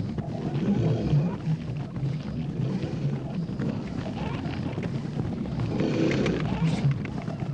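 Film sound effects of giant rabbits attacking a herd of cattle: a dense, continuous mix of wild animal cries, with a pitched call about six seconds in.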